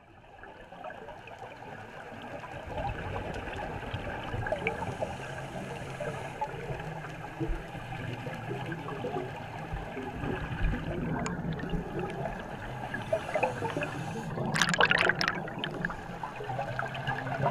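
Water gurgling and trickling, fading in over the first couple of seconds, with a louder splashing burst about fifteen seconds in.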